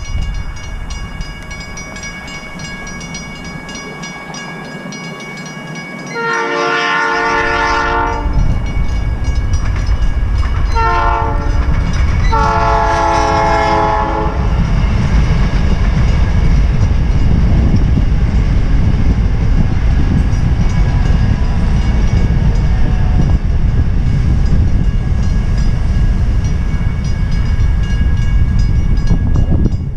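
South Shore Line electric commuter train passing on the far tracks, sounding its horn: a long blast, then a short one and another long one. A steady, loud rumble of the train rolling by comes in about six seconds in and carries on.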